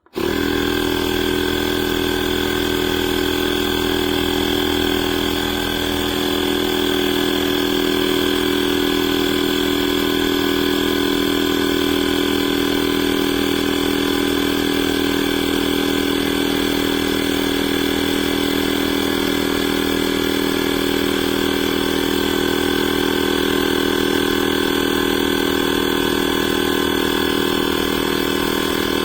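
Portable 12V tire inflator air compressor switching on abruptly and running with a steady, loud droning hum, dipping briefly about five and a half seconds in.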